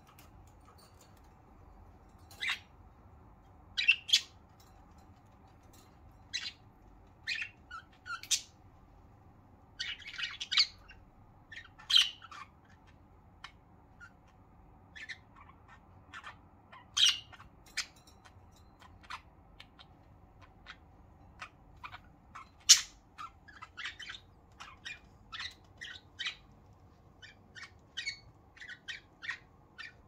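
Pet budgerigars chirping in short, scattered calls, coming more often toward the end.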